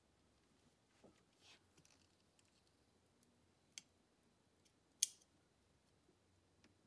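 Near silence broken by two small clicks as a wire retaining clip is seated on the throttle position sensor's plastic electrical connector: a faint one a little under four seconds in and a sharper one about a second later.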